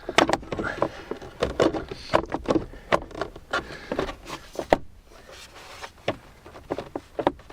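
A hard plastic fuse-box cover is handled and pressed back into place in a car: a run of clicks and knocks, with a sharp snap about three-quarters of the way through.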